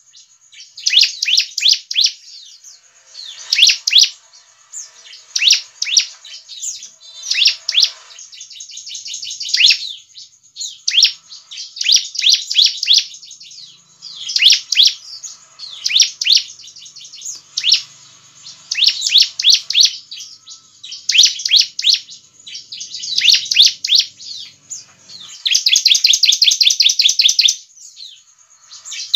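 Bar-winged prinia (ciblek) calling: short bursts of rapid, high chirps every second or two, with a longer unbroken fast trill near the end.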